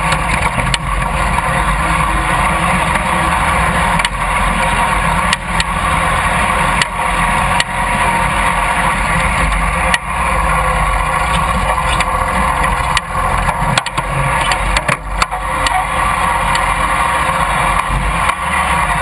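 Riding lawn mower engine running steadily as the mower drives over a rough trail, with scattered knocks and rattles throughout.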